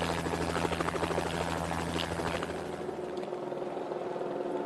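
Helicopter running overhead, a steady rotor and engine drone with a fast, even beat that fades about three seconds in.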